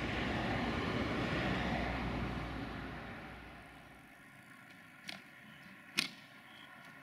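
A vehicle passing close by, a rushing swell that fades away over a few seconds, followed by two sharp clicks about a second apart, the second louder.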